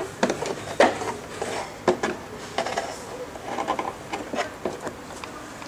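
Irregular light clicks and knocks, handling noise from the camera being moved about.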